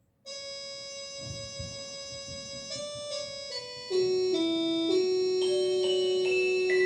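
Instrumental introduction on an electronic keyboard with an organ-like voice: held, unbroken chords that change every second or so. It starts suddenly and grows much louder about four seconds in, when a lower note enters.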